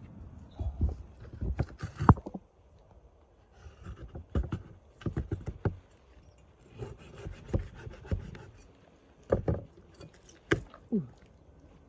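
Irregular knocks and clicks, several in quick clusters with short pauses between them.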